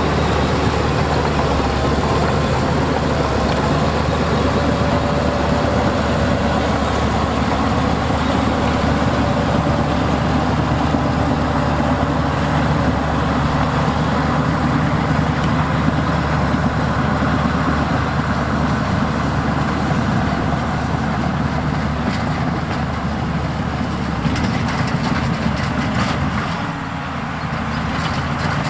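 Heavy diesel earthmoving machinery running steadily under load, with a wavering whine in the first few seconds and a few clicks and knocks near the end.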